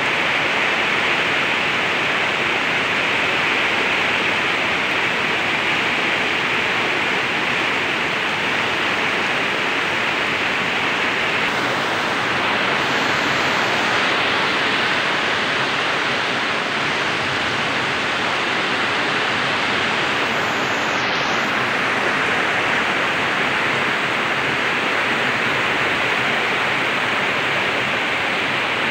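Heavy tropical downpour and muddy floodwater rushing down a bank and across a road, blending into one steady, loud rushing hiss.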